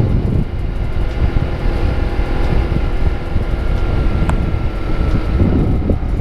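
Honda CBR250RR parallel-twin engine running steadily through a KEA Speed aftermarket exhaust while the bike is ridden, with wind rumble on the microphone.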